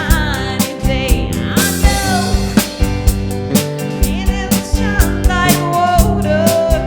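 Rock band playing a song: a steady drum beat, guitars and bass under a sung melody line.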